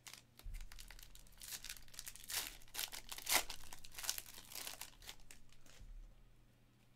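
Foil wrapper of a 2022-23 Panini Chronicles Draft Picks basketball card pack being torn open and crinkled by hand: a run of sharp crackles and rips lasting about five seconds, loudest a little past the middle.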